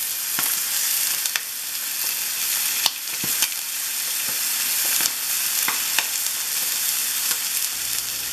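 Chicken breasts searing skin side down in olive oil in a hot skillet: a steady sizzle with scattered sharp pops of spattering fat.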